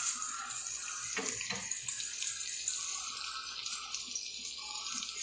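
Food frying in hot oil in a frying pan: a steady, even sizzle.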